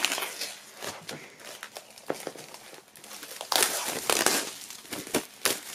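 Clear plastic shrink-wrap film being peeled and pulled off a vinyl LP sleeve, crinkling and crackling, louder for about a second starting three and a half seconds in.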